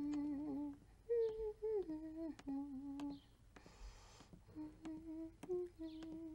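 A person humming a slow tune in held, gliding notes without words. A few sharp clicks and a short hiss a little past halfway sound under it.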